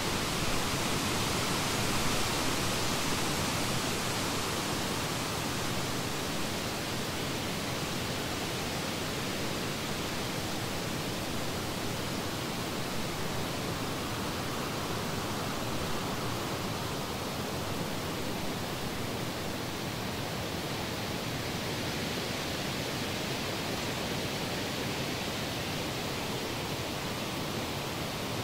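Steady, even rushing noise with no distinct events, a little louder in the first few seconds.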